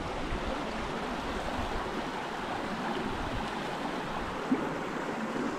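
Creek water running steadily over sandstone rocks in a small cascade into a pool.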